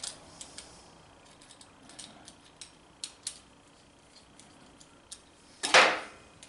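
Light metal clicks and taps of a bolt, clamp and wrench being handled, with a louder brief scrape near the end.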